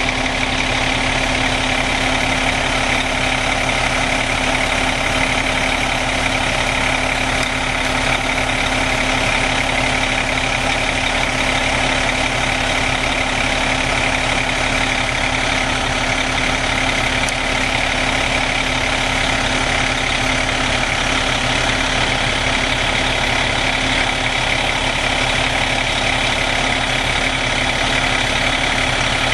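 A fire engine's Caterpillar C-13 diesel idling in a steady drone, with a steady higher hum over it.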